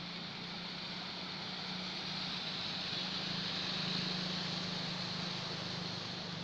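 Motorbike engines running with a steady low hum as they ride through floodwater, under a rushing wash of water that swells to its loudest partway through and then eases off.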